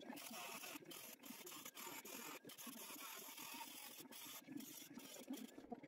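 Cordless drill driving a fitting into the end of a plywood table saw fence, heard only faintly.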